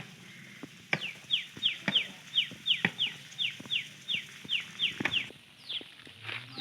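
A bird calling a rapid run of short, falling chirps, about four a second for some four seconds, over scattered sharp clicks. A cow starts to moo near the end.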